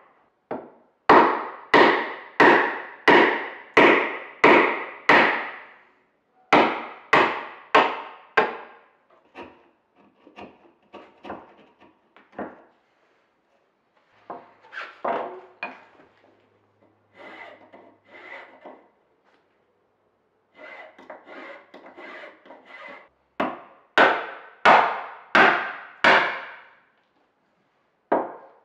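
Mallet blows on a chisel chopping a square mortise through a merbau workbench top: sharp wooden knocks about two a second, thinning into lighter taps and scraping paring cuts in the middle, then heavy blows again near the end.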